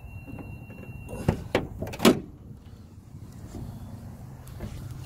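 A steady, high-pitched electronic beep from under the hood of a 2017 Dodge Challenger R/T, ending just over a second in. Its cause is unknown; the owner wonders whether it is a tracking device. Then a few sharp knocks follow, the loudest about two seconds in.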